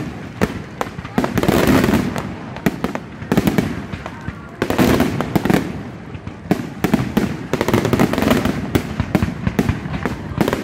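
Aerial fireworks going off in a rapid barrage: many sharp bangs close together over a continuous rumble.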